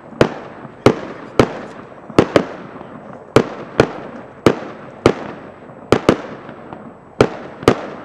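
Fireworks going off: about fifteen sharp bangs, irregularly spaced about half a second apart, each trailing off in a fading echo.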